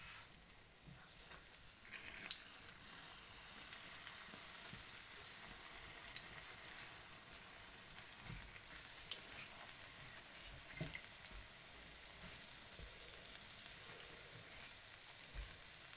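Hot oil sizzling faintly around pirozhki frying in a pan, with a few light knocks of a spatula against the pan as they are turned, the sharpest about two seconds in.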